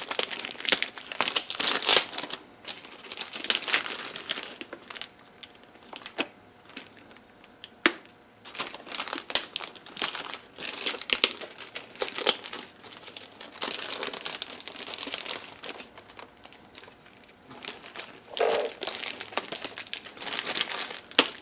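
Plastic packaging crinkling and tearing in irregular bursts as it is pulled off a drone remote controller, with a few small clicks.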